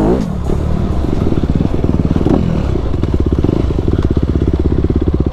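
Honda CRF250RX dirt bike's single-cylinder four-stroke engine running close up, a rapid, even pulsing as the bike rides up a dirt trail.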